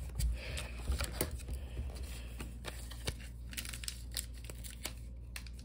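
A foil booster-pack wrapper crinkling and tearing, with the light clicks and rustles of a stack of trading cards being handled.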